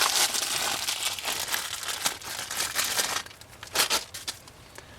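Packaging crinkling and rustling as it is handled and pulled open around a gear knob, dense for about three seconds, then dropping away to a few sharp crackles.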